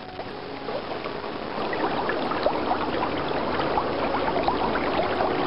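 River water sound effect: running water bubbling and gurgling, growing louder over the first two seconds, then holding steady.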